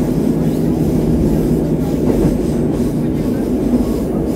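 Moscow metro train running between stations, heard from inside the carriage: a steady rumble of wheels on rail and running gear under a low steady hum.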